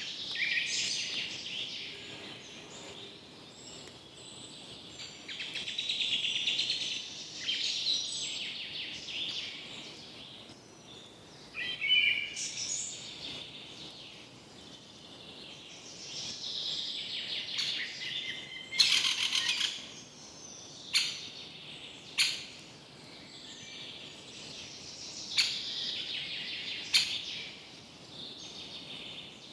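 Birds chirping and calling in overlapping bouts, with a few sharp clicks or snaps in the second half.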